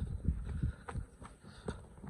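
Footsteps on a rough stony, partly snowy path: irregular low thuds and scuffs with a couple of sharper knocks.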